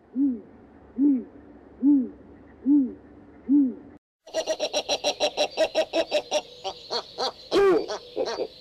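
Owl calls. First a series of six low hoots, evenly spaced a little under a second apart. After a short break comes a quick run of short, higher notes, about six a second, with a few louder, drawn-out falling calls near the end.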